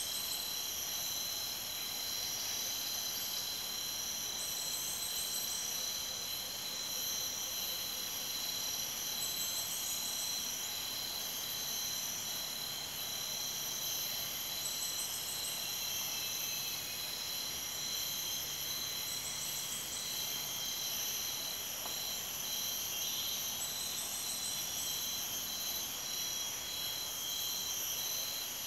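Tropical forest insect chorus: several steady, high-pitched insect trills layered together, with another pulsing insect call coming in for about a second roughly every five seconds.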